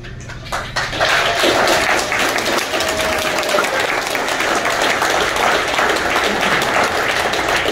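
Audience clapping, which starts about half a second in and builds to a full round of applause within a second, with a few voices calling out over it.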